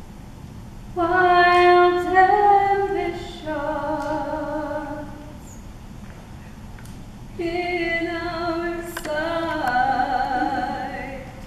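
A young woman singing solo on stage in two held phrases, the first starting about a second in and the second about seven seconds in, with a pause between.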